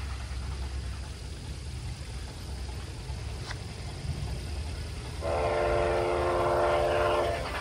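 Soundtraxx steam sound decoder in a Bachmann Spectrum 2-6-0 large-scale locomotive blowing its steam whistle, one long blast of about two seconds starting about five seconds in, played through the locomotive's onboard speaker. A low steady rumble runs underneath before it.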